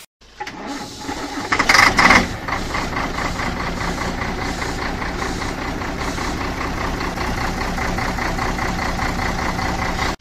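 Electromechanical desk calculator running, its motor-driven mechanism chattering fast and evenly, much like an idling diesel engine. It starts a moment in, with a louder clatter about two seconds in, then settles into a steady run.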